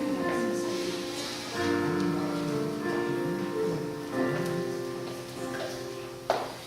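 Instrumental music with sustained keyboard-like notes and a gliding lower melody. A single sharp knock sounds near the end.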